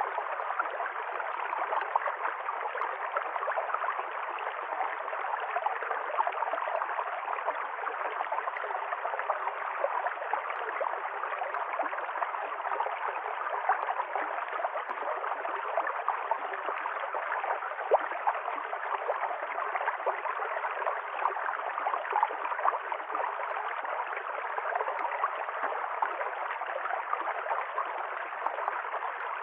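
A river stream flowing over rocks, a steady splashing and gurgling rush of water.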